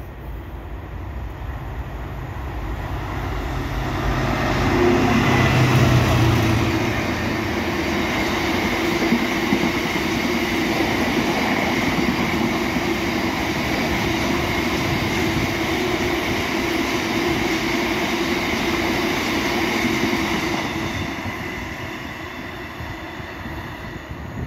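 A freight train of cement hopper wagons passes on the line. The rumble builds and is loudest about five seconds in, with a low hum, as the head of the train goes by. Then comes a long steady rumble and clatter of wagon wheels on the rails, with a faint high ringing, which fades over the last few seconds as the train moves away.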